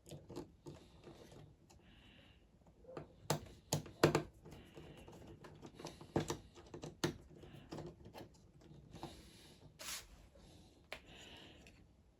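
Irregular clicks, taps and knocks of hands working on the Roland Juno-DI keyboard's plastic casing and parts as it is put back together after the pitch-bend potentiometer swap, with a few short rustles in between. The loudest knocks come in a cluster about three to four seconds in.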